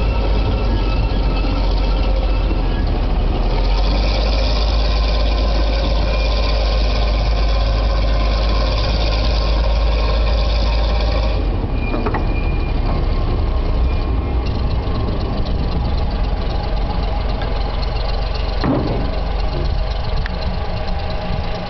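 Small narrow-gauge diesel locomotive's engine running steadily as it hauls a slow-moving works train of wagons, heard from a wagon behind it. About halfway through, the sound gets less harsh.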